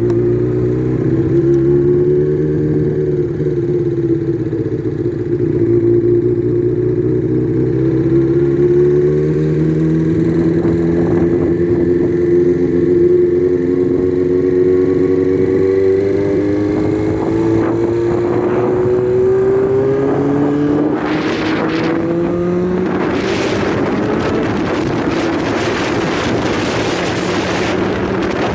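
Honda CBX 750F's air-cooled inline-four engine running, its pitch climbing slowly for about twenty seconds and then dropping briefly. Wind rushing over the microphone grows over the last few seconds.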